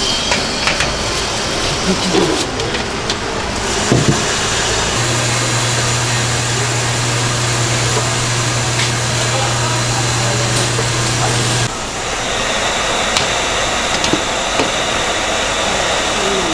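Steady rushing hiss of steam venting from stacked stainless steel dumpling steamers, with a few light clicks. A low steady hum joins in about a third of the way through and stops abruptly about two-thirds of the way through.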